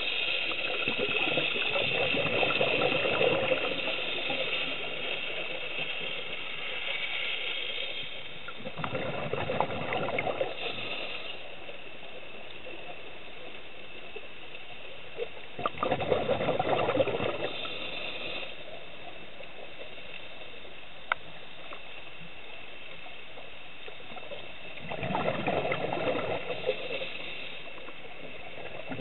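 Scuba diver's exhaled bubbles heard underwater, coming in bursts a few seconds long about every seven to eight seconds with each breath, over a steady underwater hiss.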